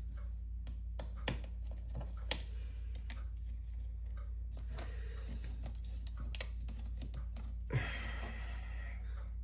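Scattered small clicks and taps of a screwdriver working the heatsink screws of a laptop, with a brief scraping rustle about eight seconds in, over a steady low hum.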